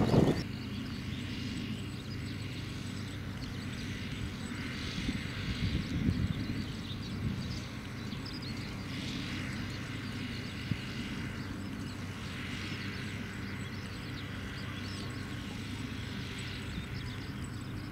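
A steady low mechanical hum from a distant engine, with faint higher sounds coming and going every few seconds.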